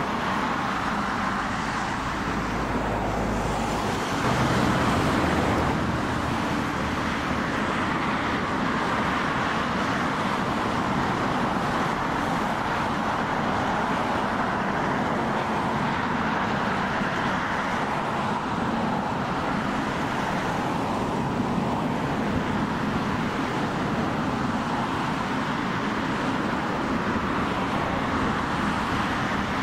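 Jet engines of an Airbus A320-family airliner running as it taxis on the runway, a steady distant rush with a brief low swell about four seconds in.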